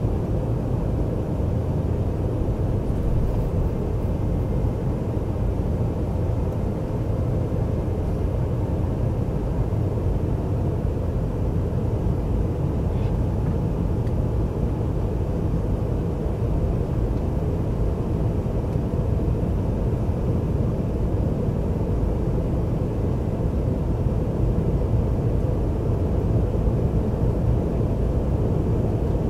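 Steady low drone of an airliner's jet engines and rushing airflow, heard inside the passenger cabin.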